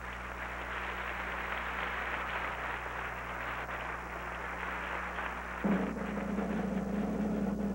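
Sustained drum roll, steady throughout, with a lower pitched roll joining about two-thirds of the way through, over a constant low hum from the old recording.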